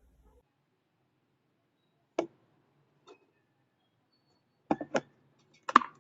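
Stainless steel electric kettle being handled, giving sharp clicks and knocks. There is one about two seconds in, a pair about five seconds in, and a louder cluster near the end.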